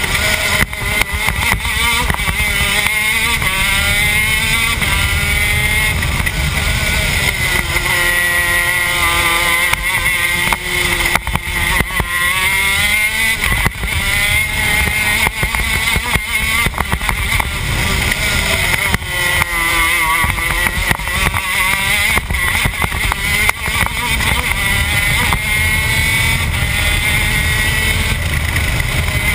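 TM K9c 125 cc two-stroke shifter kart engine at racing speed, heard onboard. Its pitch climbs and drops several times as it pulls up through the gears and slows for corners.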